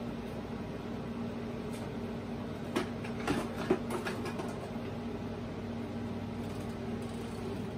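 A steady low hum, with a few light clicks and knocks about three seconds in.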